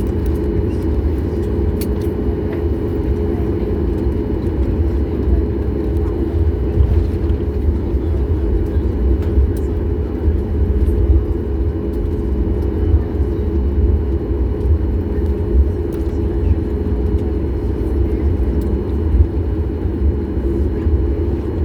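Steady cabin noise of a Boeing 737 MAX 8 taxiing after landing: a low rumble with an even engine hum at idle, and a few light clicks and rattles.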